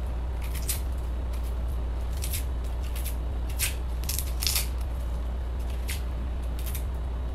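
Small kitchen knife peeling the papery skin off an onion: short scraping ticks at irregular intervals, over a steady low hum.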